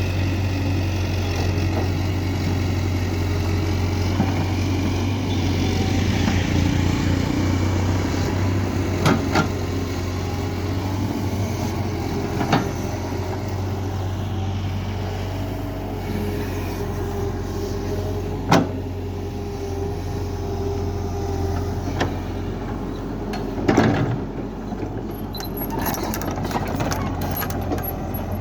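Excavator's diesel engine running steadily with a deep hum, with a handful of sharp knocks scattered through.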